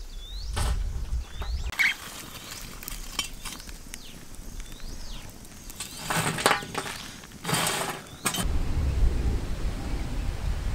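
Burning charcoal poured and scattered onto a metal pot lid, clattering and clinking in several bursts, the loudest two near the end, over a short chirp repeating about every half second. About eight seconds in, a low steady rumble of wind takes over.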